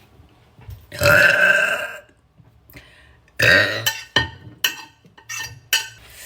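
A woman burping: one long, loud burp about a second in, then another loud burp at about three and a half seconds followed by a quick run of short burps.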